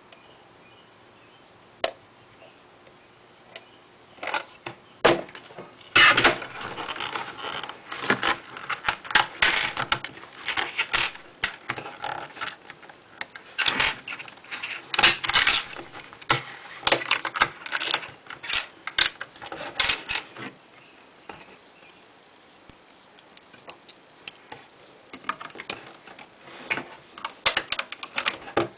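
Plastic Lego bricks clicking and clattering as they are handled and pressed onto a baseplate, in bursts of rapid clicks with a quieter spell between.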